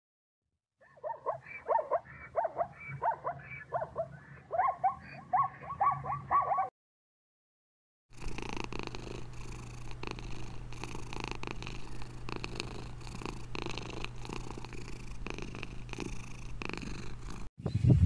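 A rapid run of short calls, about three a second, for several seconds. After a short gap, a ginger kitten purrs steadily with a regular pulse for about nine seconds.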